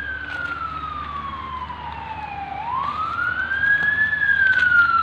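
A siren wailing in a slow rise and fall: its pitch slides down for about two and a half seconds, climbs back over the next second and a half, then starts falling again.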